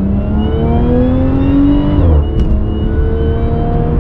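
Audi S4's supercharged V6 pulling hard under acceleration, heard from inside the cabin: the engine note and the supercharger whine climb in pitch, drop sharply at a gear change about halfway, then climb again.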